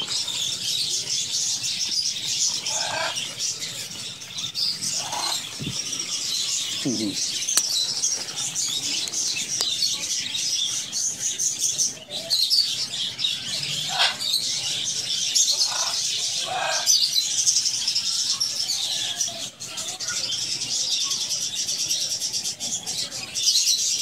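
A large flock of budgerigars chattering and twittering without a break, with a few short, louder, lower calls scattered through.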